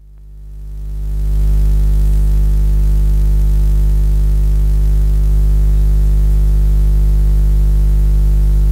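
Routine music over the arena's sound system, fading in over about a second and a half, then a loud held low electronic drone with steady sustained tones and no beat.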